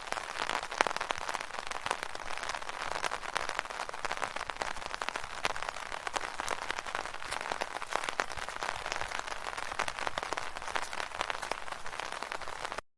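Heavy rain striking an umbrella overhead: a dense, steady crackle of countless small drop hits. It cuts off suddenly near the end.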